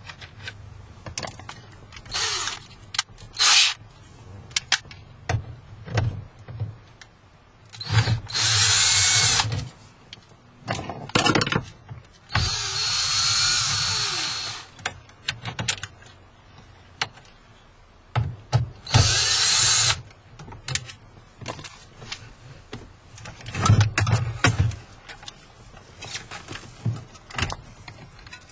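Cordless driver spinning T20 Torx screws out of a car's dash trim in about five short runs of one to two seconds each, the longest about halfway through, with clicks and knocks of plastic trim and parts being handled in between.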